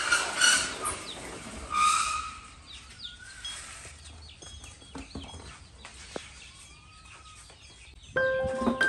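Chickens clucking: a loud call at the start and another about two seconds in, then quieter calls mixed with small bird chirps. Music with chime-like tones comes in near the end.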